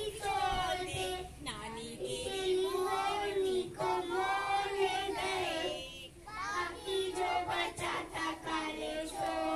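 Young child singing a song into a microphone, holding long notes with a slightly wavering pitch and brief breaks between phrases.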